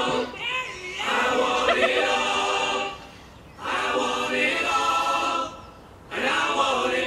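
Voices singing a cappella, choir-like, in wavering held phrases of about two seconds each, with short pauses in between.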